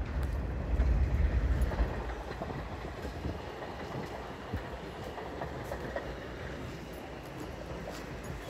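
Elevated subway train running on its overhead tracks: a steady rumble, louder for the first two seconds and then easing off.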